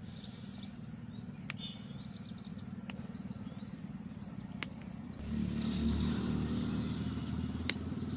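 An engine running steadily, louder from about five seconds in, with many small birds chirping and a steady high insect buzz, and a few sharp clicks.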